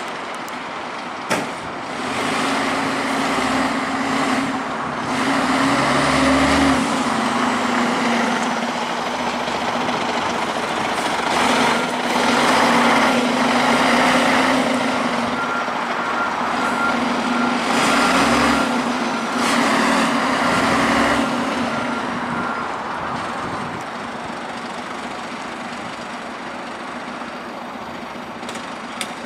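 Volvo FL10 fire engine's diesel engine revving in repeated surges while the aerial ladder platform manoeuvres. A reversing alarm beeps steadily for several seconds in the middle, and a brief sharp sound comes about a second in.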